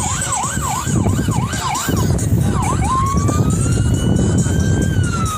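Police siren on a fast yelp, about three up-and-down sweeps a second, switching about three seconds in to a slow wail that rises, holds, and begins to fall near the end. A steady low rumbling noise runs underneath.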